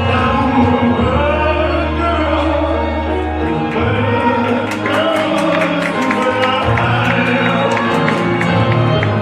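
A song with sung vocals over sustained low notes; a light ticking beat comes in about four seconds in.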